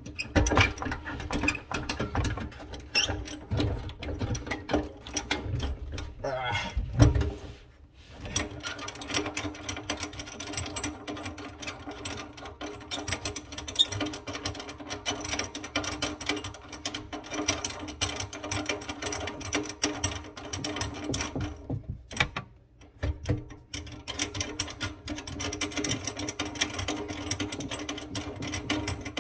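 Rapid metallic clicking and rattling of hand tools working loose the old kitchen faucet's mounting hardware under the sink, with brief pauses about eight seconds in and again past twenty seconds, over a steady low hum.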